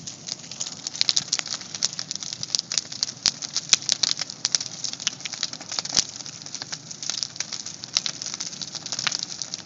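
Large bonfire of scrap wood burning hard, crackling with irregular sharp pops, a few each second, over a steady rush of flame.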